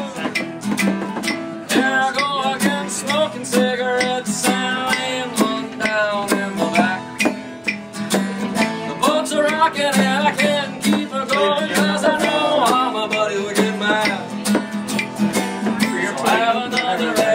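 Acoustic guitars strummed in a steady rhythm, with a voice singing the melody over them.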